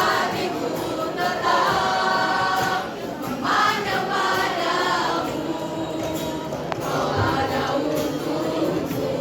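Junior high school choir singing together in phrases, with short breaths between the lines.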